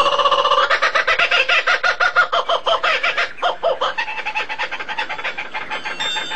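A bird calling in a fast run of repeated clucking notes, about ten a second, growing quieter after about four seconds.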